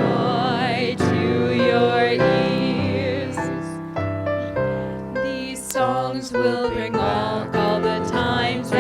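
A song: a voice singing with vibrato over sustained instrumental accompaniment with a moving bass line.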